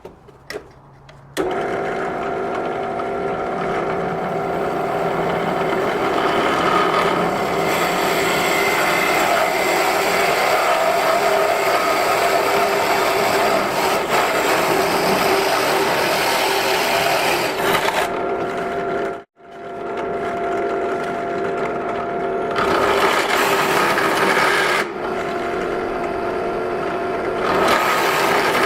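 An electric woodworking power tool starts about a second and a half in and runs with a steady whine. It is working wood, and the sound turns rougher and fuller in stretches while it bites into the board. It drops out for a moment about nineteen seconds in, then carries on.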